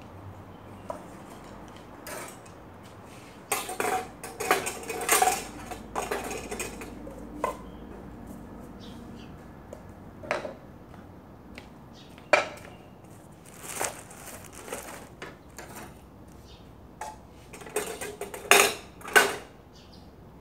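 Dishes, cups and cutlery clinking and clattering as a table is cleared by hand, in irregular bursts that are busiest about four to seven seconds in and again near the end.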